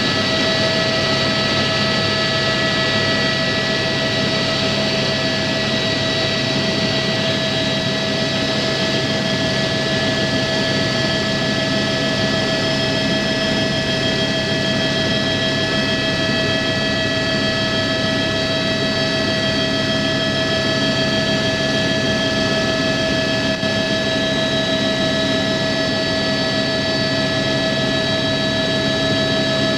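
Helicopter in flight heard from inside the cabin: steady engine and rotor noise with a constant high whine made of several steady tones.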